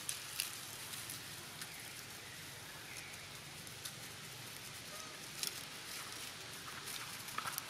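Soft rustling and scattered small crackles of dry leaf litter as young long-tailed macaques move and forage over the ground, with a few faint short chirps over a steady outdoor background.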